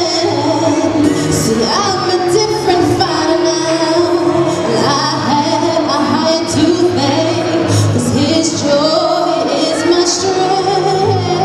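Choir of women singing together in harmony into handheld microphones, one voice leading with gliding, held notes.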